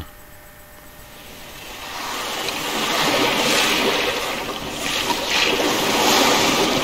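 Recorded sea waves and wind, fading in and then swelling in slow surges.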